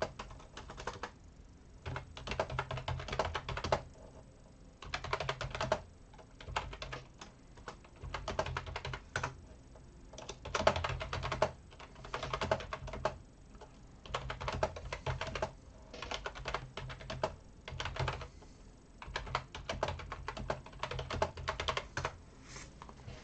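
Typing on a computer keyboard in bursts of rapid key clicks, each a second or two long, with short pauses between them.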